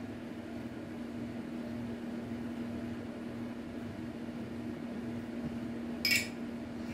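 Steady room hum, with one short metallic click about six seconds in as the barrel and slide of an H&K P30L pistol are handled during takedown.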